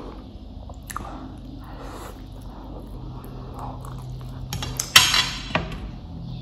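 Chewing noodles close to the microphone, then about five seconds in a loud clatter of wooden chopsticks set down on a ceramic plate, a few quick strikes within half a second.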